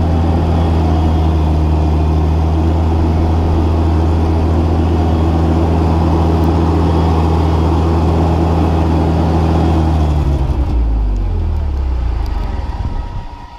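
Mobility Dipper 4x4 loader's engine running at a steady pitch as the loader moves. About ten and a half seconds in, the engine note drops and dies away over the next couple of seconds as the engine is shut down.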